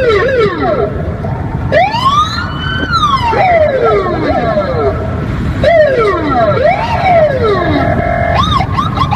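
Police car's electronic siren, switching between patterns: repeated falling sweeps of about a second each, one long rising-and-falling tone, and a quick warble near the end.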